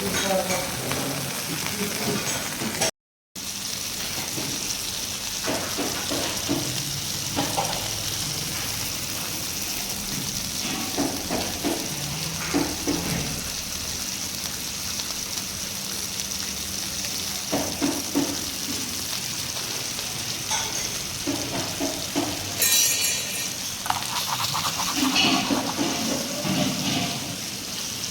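Red snapper frying in oil on a flat tawa: a steady sizzling hiss with scattered scrapes and knocks. The sound cuts out briefly about three seconds in.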